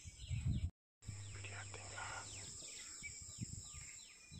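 Birds calling: many short downward-sliding chirps, several a second and overlapping, over a low background rumble. The sound cuts out completely for a moment just under a second in.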